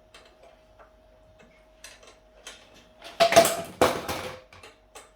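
Metal hand tool clinking against bicycle parts as the brake cable's clamp screw is tightened: a few light ticks, then two louder metallic clatters about three and four seconds in.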